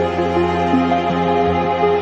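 Relaxing ambient music: a slow line of held notes that change every half second or so over a steady low tone.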